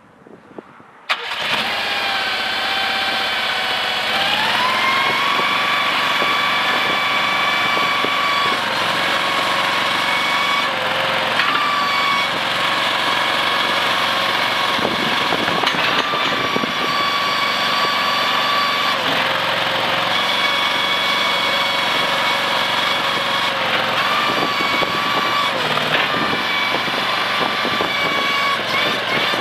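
Compact skid steer's engine starting about a second in, then running steadily. Its pitch steps up a few seconds later as the throttle is raised, and it dips and shifts slightly several times after that.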